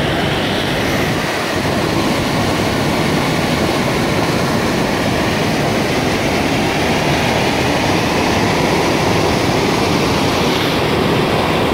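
Steady rush of white water: a spring pouring out of a cave and cascading into a rock pool and river.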